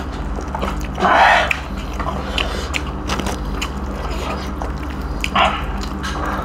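Eating sounds: biting and chewing roasted duck, with small clicks from fingers working rice and meat on steel plates, and two louder short noisy swells, about a second in and again near the end. A steady low hum runs underneath.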